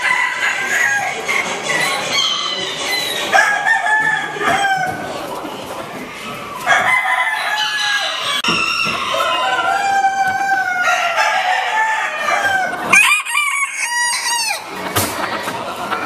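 Bantam chickens clucking and roosters crowing, many calls overlapping, with one loud crow near the end.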